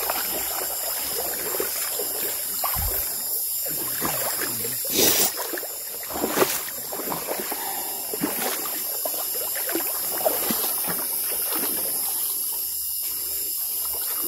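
Water sloshing and splashing in a river, under a steady high buzz of night insects, with two louder knocks about five and six and a half seconds in.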